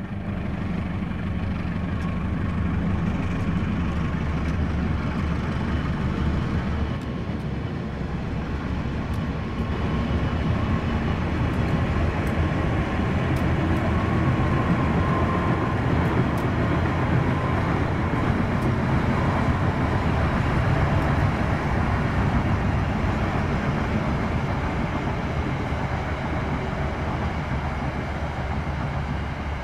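Diesel locomotive hauling a passenger train past, its engine running low under the steady noise of the wheels on the rails, with a faint high whine that comes and goes.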